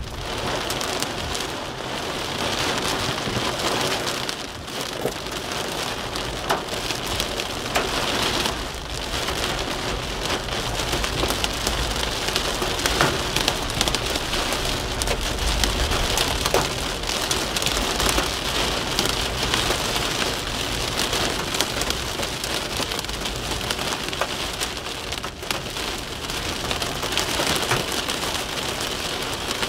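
Rain pelting a moving car's windshield and roof, heard from inside the cabin: a steady hiss with many small drop impacts over a low road rumble.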